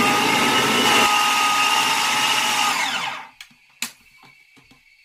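Small electric food processor running with its bowl overfilled with a heavy oat, apple and date dough mix, a steady loud motor whine, then switched off and spinning down about three seconds in. A single click follows shortly after.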